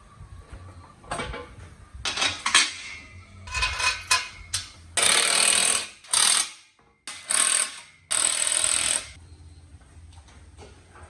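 Workshop tool work: a few sharp knocks, then four short bursts of hissing noise from a tool, each cut off abruptly, the longest about a second.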